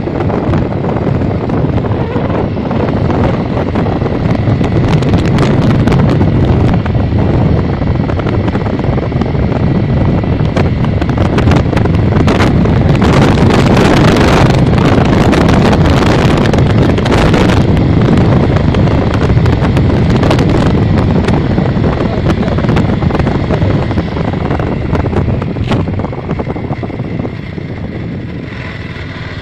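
Heavy wind buffeting on the microphone from riding a moving motorcycle, over road and engine noise. It grows louder in the middle and eases near the end.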